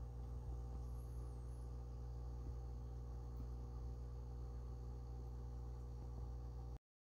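Steady low electrical hum with one faint high chirp about a second in, cutting off suddenly near the end.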